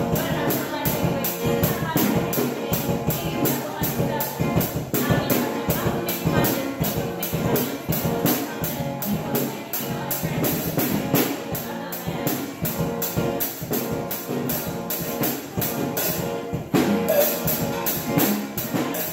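Live acoustic jam: a woman singing over two acoustic guitars, with a suitcase drum kit keeping a steady beat on snare and cymbal. The cymbal breaks off briefly near the end, then the playing comes back louder. Recorded on a phone, so the sound is rough.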